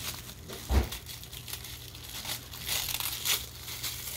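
Crinkly toy packaging rustling and crackling as it is handled and unwrapped, with a short dull thump about a second in.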